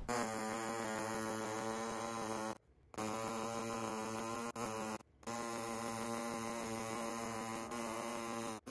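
Air-powered body saw running at a steady buzz while cutting the plastic skirt of a van seat base. It stops abruptly twice and restarts.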